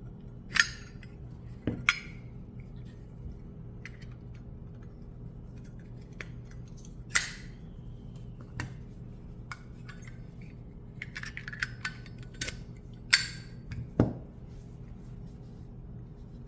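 Solid copper Zippo lighter being handled: a handful of sharp metallic clicks and clinks, spread apart, some with a brief ring, from the lid and case.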